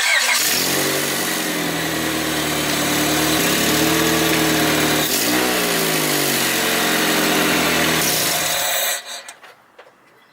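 Honda Accord engine running and revved twice, its exhaust leaking through a hole in the flex pipe; the sound stops abruptly about nine seconds in.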